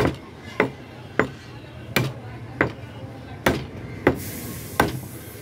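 Heavy chopper cutting goat meat on a wooden log chopping block: eight sharp chops, roughly one every two-thirds of a second, the blade going through the meat into the wood.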